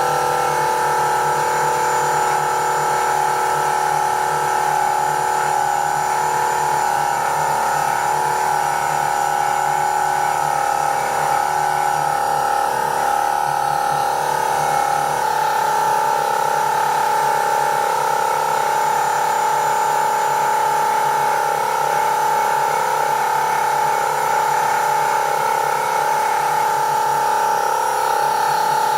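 Electric power tool motor running steadily under load, sawing a blank from an 18 mm board; a constant whine without pauses.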